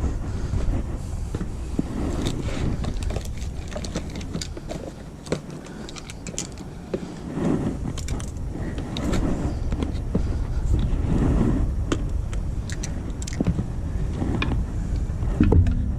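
Scattered sharp clicks and light clinks over a steady low rumble, with a few short louder handling sounds.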